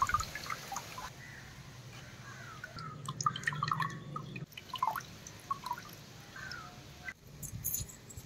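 Tamarind water dripping and dribbling from a squeezing hand into a stainless-steel pot: faint, scattered short plinks of drops landing in liquid.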